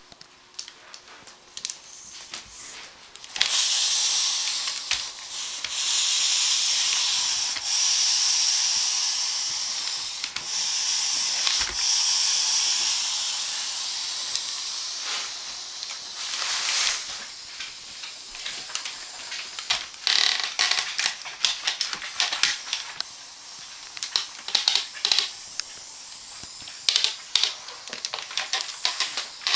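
Electric steam mop hissing as it puts out steam: a high hiss that jumps up sharply about three seconds in, stays loud through the first half, then fades. In the second half, quick light clicks and taps come in runs as the mop head is pushed over the wooden floor.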